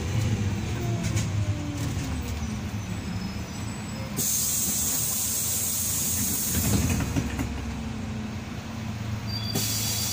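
Inside a Karosa B 961E articulated city bus under way: the diesel engine and drivetrain run steadily, with a faint whine that falls in pitch over the first few seconds. A loud hiss starts about four seconds in and cuts off a couple of seconds later, with a low thump, and another hiss starts near the end.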